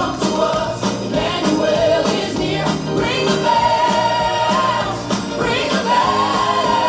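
A group of young children singing together over a recorded backing track with a steady beat, holding a long note about halfway through and again near the end.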